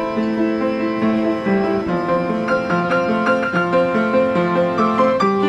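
Upright piano being played: a melody over low held chords, with a stretch of quicker high notes a little after the middle.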